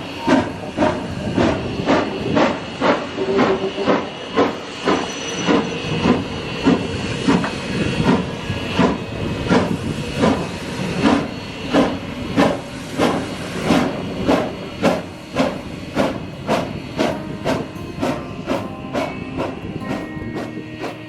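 Steam locomotive chuffing as it works along, a regular beat of exhaust puffs over a steady hiss of steam. The beats quicken from about two a second to nearly three a second in the second half.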